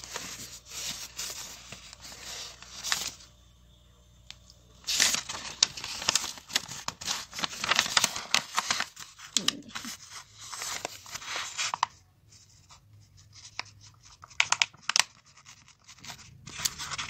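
Paper rustling and crinkling as a notebook and newspaper are handled and shifted, coming in bursts: a short stretch at the start, a longer one in the middle and more near the end.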